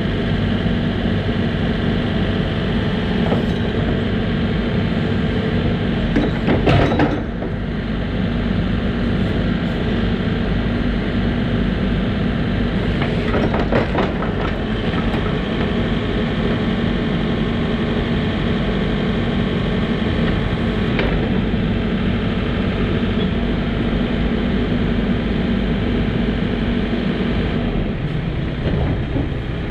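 Case 590SN loader backhoe's diesel engine running steadily under hydraulic load as the loader and backhoe are worked, with short metallic clanks about 7 and 14 seconds in. The engine note drops near the end.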